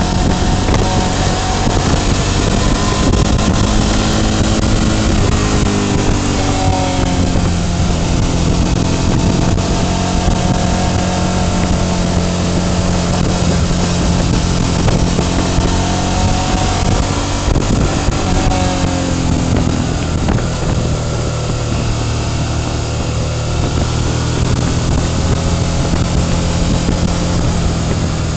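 Onboard sound of a motorcycle engine running on the move, its pitch rising and falling several times with throttle and gear changes, over a steady rush of wind noise.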